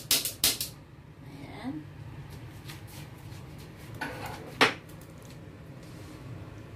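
A frying pan being handled on a gas stove: a few sharp clicks at the start, then two knocks of the pan against the stove grate about four seconds in, the second the loudest. A low steady hum runs underneath.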